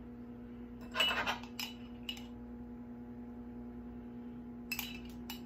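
Table knife clinking and scraping against a small ceramic butter dish while softened butter is scooped out and spread on bread: a scrape with clinks about a second in, a couple of lighter taps after it, and two sharp clinks near the end.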